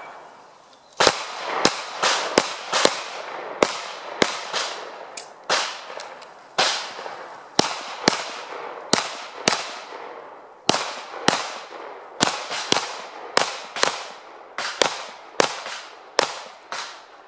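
Pistol firing a rapid course of fire, about thirty shots, mostly half a second apart or less, with short breaks between strings, each shot ringing out briefly.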